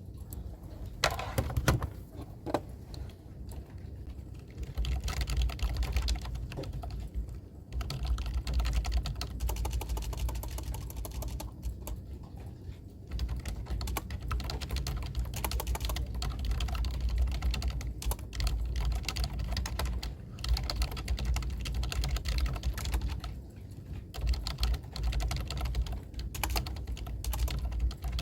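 Fast typing on a computer keyboard: rapid runs of key clicks broken by brief pauses.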